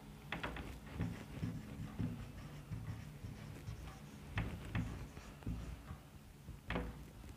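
Marker pen writing on a whiteboard: faint, irregular strokes and taps over a low room hum.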